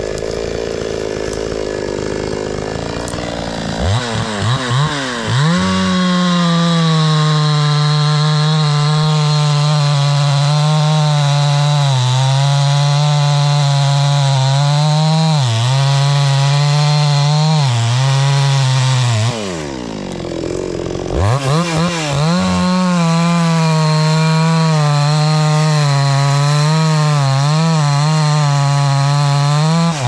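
Hyundai Turbo 650 two-stroke chainsaw running at idle, then blipped a few times about four seconds in and held at full throttle cutting into a tree trunk, its pitch dipping now and then under load. About twenty seconds in the throttle drops back briefly, then the saw revs up and cuts again.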